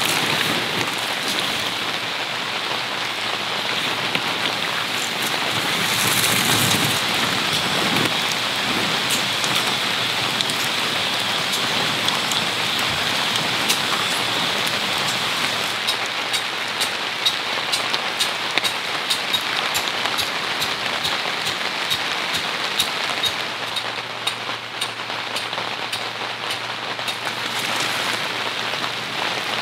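Steady rain falling, with many sharp drop ticks close by that grow denser about halfway through.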